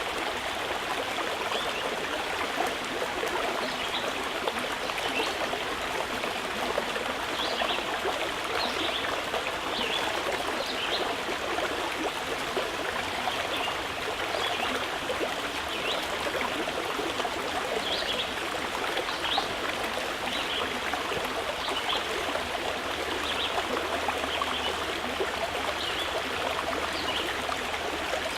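Water running steadily, with small bright trickling flicks scattered through the flow.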